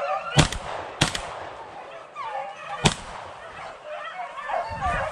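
Three shotgun shots: two about half a second apart, then a third nearly two seconds later. Beagles baying on a rabbit's trail run between the shots and rise again near the end.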